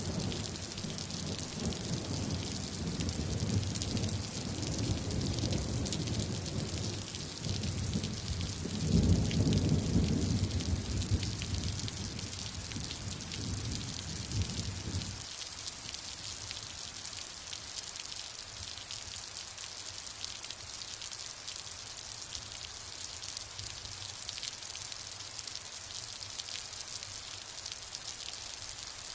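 Steady rain hiss, with a low rumble of thunder under it through the first half, swelling loudest about nine seconds in and cutting off suddenly about halfway through, leaving only the rain.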